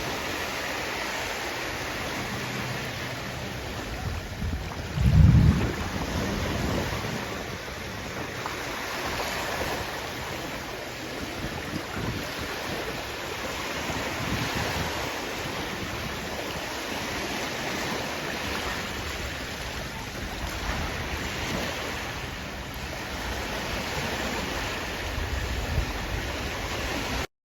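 Sea waves washing on the shore, a steady rush, with wind buffeting the microphone and a strong low gust about five seconds in. The sound cuts off abruptly just before the end.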